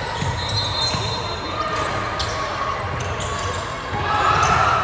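Basketball bouncing on a gym floor during play, with voices calling out across the hall. A louder shout comes about four seconds in.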